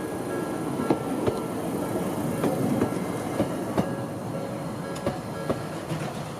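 A Toden Arakawa Line streetcar passing, its wheels clicking over rail joints in pairs of clicks less than half a second apart, over a steady rumble that swells through the middle.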